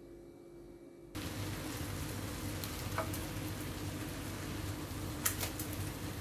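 Marinated pork chops sizzling as they fry in a double-sided pan, starting about a second in, with a couple of sharp clicks from metal tongs turning the meat.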